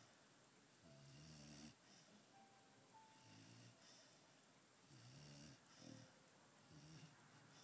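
Pit bull puppy snoring faintly in its sleep, a soft rasping snore about every one and a half to two seconds.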